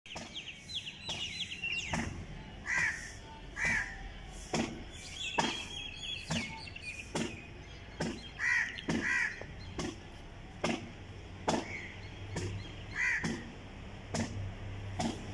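Crows cawing: short, harsh calls, often in pairs, every couple of seconds. Smaller birds twitter about a second in and again around five seconds, and sharp clicks recur throughout.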